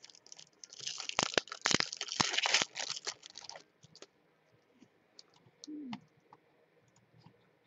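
Foil wrapper of a baseball-card pack crinkling for about three seconds as it is handled and opened, then a few light taps and clicks of the cards being handled.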